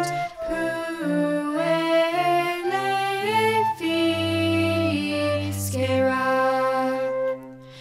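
A small group of girls singing held notes in harmony, accompanied by a bowed cello; the music falls away briefly near the end.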